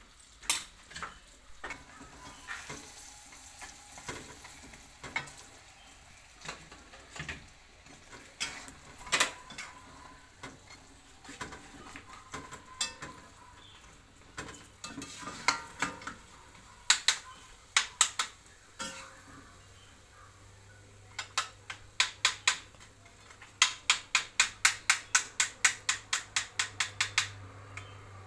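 A metal spoon scraping and clinking against a plate while tofu slices are coated in egg and flour, then tofu frying in oil in a wok with a metal spatula knocking against the pan. Near the end comes a quick, even run of taps, about four a second, over a low steady hum.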